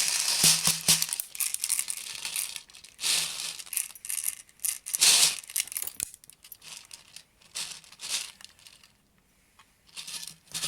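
Crinkling and rustling of a plastic bag of 0.2 g airsoft BBs, in several separate bursts, as it is handled to fill the magazine's loading funnel.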